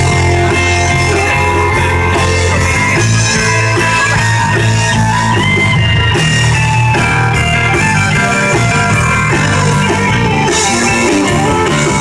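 Rock music led by guitar, with a steady bass underneath.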